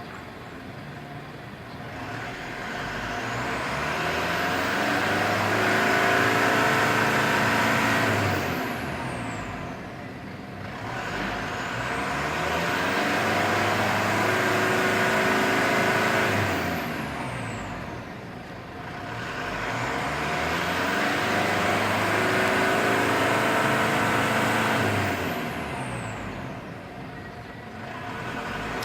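Mitsubishi Strada's four-cylinder DID common-rail turbodiesel revved hard three times, each rev climbing, held for several seconds, then dropping back toward idle, with a high whistle rising and falling with each rev. The revs are a free-acceleration test of whether the engine still blows black smoke.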